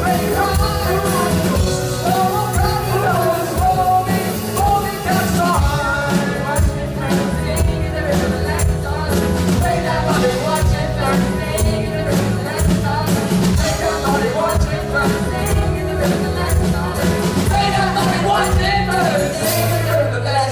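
Live rock band playing with a singer, the drums keeping a steady beat.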